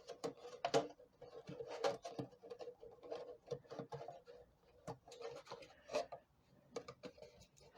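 Irregular light clicks, taps and rubbing of craft materials and tools being handled on a work surface, over a faint steady hum.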